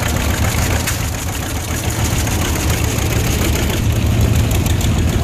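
Antique John Deere two-cylinder tractor engine running at parade pace as it passes close by, with a rhythmic low beat, and other old tractor engines running behind it.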